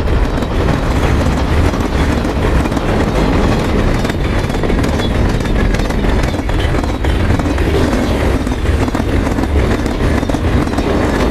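Heavy freight train running: a loud, steady low rumble with dense clattering clicks over it, a monster-train sound effect.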